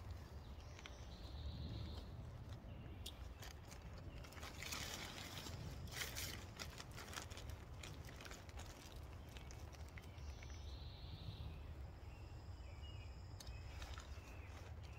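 Nylon tent fabric rustling in scattered bursts as a folded Lightspeed pop-up changing-room tent is pulled out of its bag and handled, over a low steady rumble.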